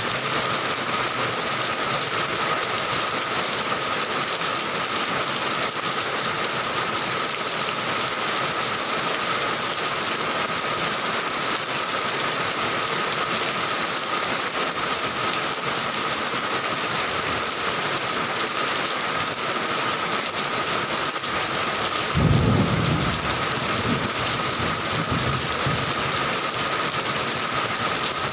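Heavy rain falling in a steady hiss. About three-quarters of the way through, a low rumble of thunder comes in, followed by fainter rumbles.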